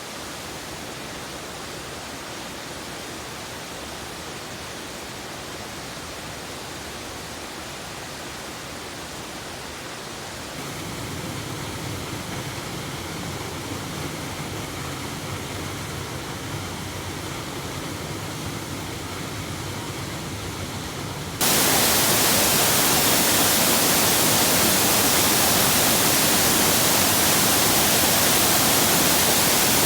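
Waterfalls: a steady rush of falling water that steps up abruptly twice, a little louder about a third of the way in and much louder and brighter about two thirds of the way in.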